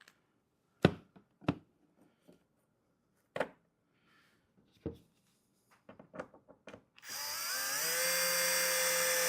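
A few light clicks and knocks, then about seven seconds in a power drill starts, rising in pitch before running steadily as it drives a screw to fix a latch to the hive's cedar door.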